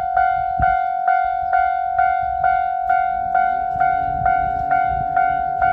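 Japanese railroad level-crossing warning bell ringing its electronic 'kan-kan' tone, about two strikes a second on one pitch, warning that a train is approaching. A low hum joins underneath about three seconds in.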